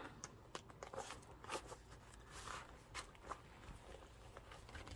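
Faint rustling and scattered soft clicks of plastic cards being slid and pushed into the tight slots of a fabric wallet.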